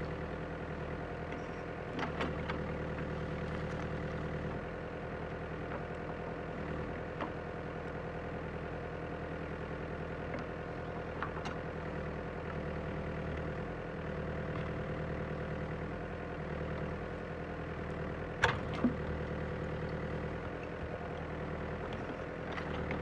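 Caterpillar 428D backhoe loader's four-cylinder diesel engine running steadily under hydraulic load as the backhoe digs. A few sharp knocks come from the bucket and arm, the loudest about eighteen seconds in.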